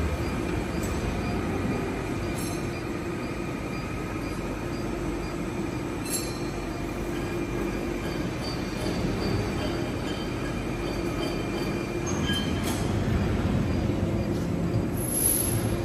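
TK6513 CNC floor-type horizontal boring mill running: a steady mechanical hum with faint thin whines over it. There are a few light clicks, and a short high hiss comes near the end.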